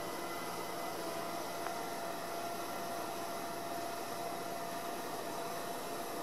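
Steady low hiss with a faint steady tone running under it, with no burner firing: the quiet background of a hot-air balloon drifting.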